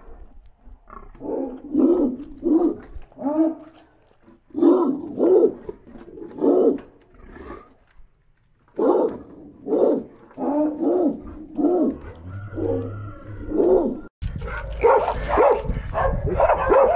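A pig grunting in runs of short, low grunts, several a second, with pauses between the runs. Near the end, after a cut, a louder and more jumbled stretch of animal noise takes over.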